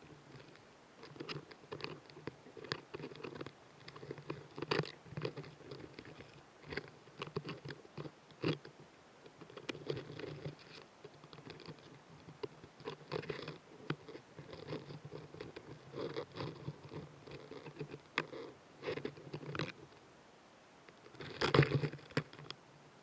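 Narrow-winged mantis chewing on prey, heard very close: irregular crunching and small clicks, with the loudest cluster of crunches near the end.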